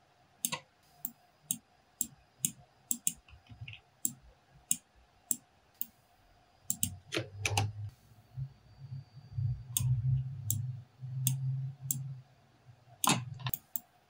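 Computer mouse buttons and laptop keys clicking: sharp single clicks about every half second, then a few louder clicks. From about seven seconds in, a low rubbing rumble runs under them.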